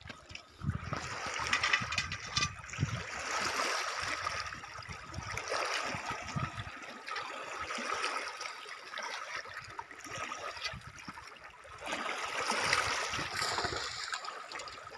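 Water splashing and lapping at a stony shore as a hooked carp is played in. The fish thrashes at the surface near the end, where the splashing is loudest.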